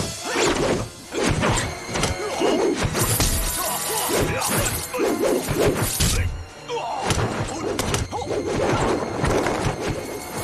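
Dramatic background music with repeated whacks, crashes and thuds from a staged martial-arts fight, with a brief lull about six seconds in.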